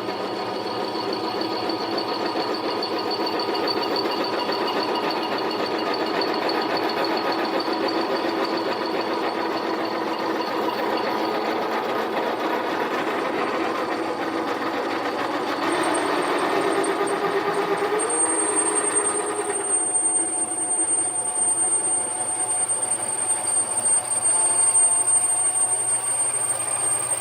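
Harbor Freight mini lathe running steadily under a cut as it opens up a large hole through the workpiece, with motor and gear whine. About two-thirds of the way through the sound changes and a thin high whine sets in.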